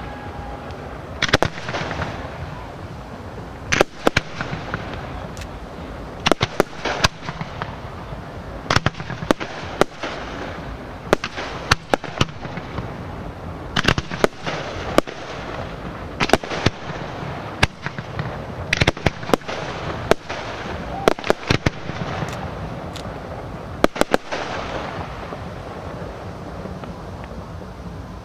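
Fireworks display: aerial shells bursting in a long run of sharp bangs at irregular intervals, often several in quick succession, each trailing an echo. The bangs stop about 24 seconds in.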